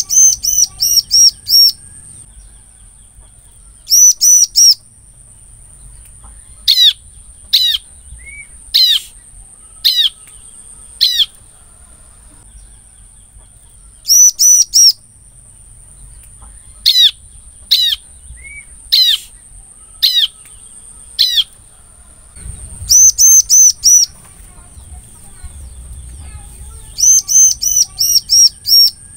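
Bar-winged prinia (ciblek) calling: loud bursts of four to six rapid, high chirps, alternating with single downward-sliding notes spaced about a second apart. A steady high-pitched whine runs underneath throughout.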